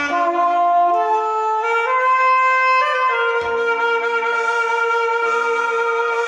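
A wind instrument playing a slow melody over an accompaniment, climbing in steps and then holding one long note from about three seconds in.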